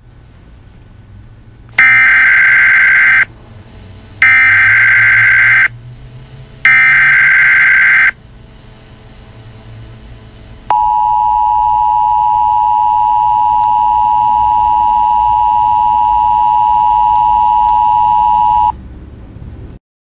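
Emergency Alert System SAME header, three bursts of screeching data tones each about a second and a half long, announcing an Emergency Action Notification. They are followed by the EAS two-tone attention signal, held steady for about eight seconds before cutting off, over a faint low hum.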